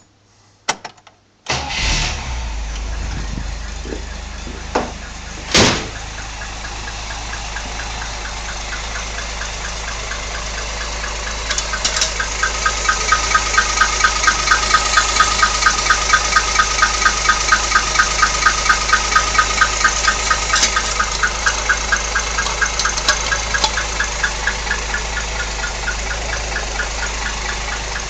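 1964 Rambler engine starting about a second and a half in, then running at idle. From about twelve seconds in, an odd rhythmic knock of roughly three beats a second comes through, then fades back toward a steady idle near the end.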